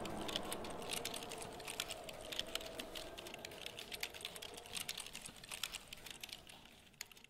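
Quiet, irregular rapid clicks over a faint lingering tone, the whole fading gradually toward the end.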